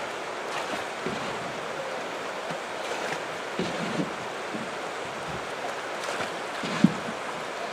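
Steady rush of river water running through a shallow rapid, with a few soft low knocks now and then, the clearest near the end.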